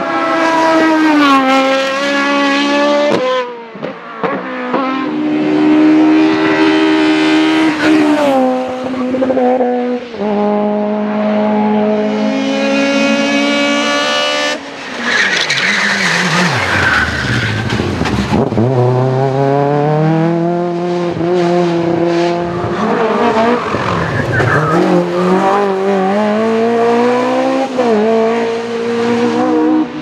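Hillclimb race cars at full throttle, one after another, their engines climbing in pitch through each gear and dropping sharply at every upshift. A single-seater runs first, then modified hatchbacks. Midway a car goes through a bend with a burst of tyre squeal as it passes close by.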